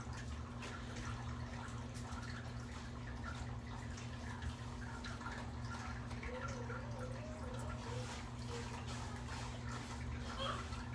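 Juvenile Nile monitor lizard chewing a toad: faint, irregular wet clicks and smacks, over a steady low electrical hum.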